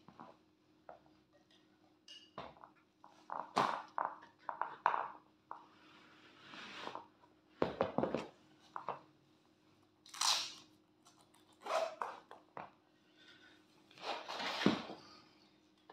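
Heavy work boots knocking and scuffing against a wooden boot jack and the floor as a boot is levered off in the jack's fork: irregular knocks and scrapes, some with a short rasping scrape, the loudest about three and a half, ten and fourteen and a half seconds in.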